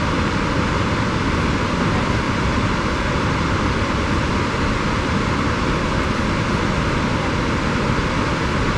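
Snoqualmie Falls, a 268-foot waterfall, giving a steady, unbroken rush of falling water.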